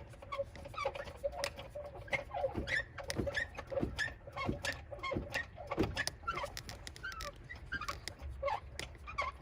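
Car jack being worked to raise the car, giving a run of short squeaks and clicks about twice a second as the handle is pumped.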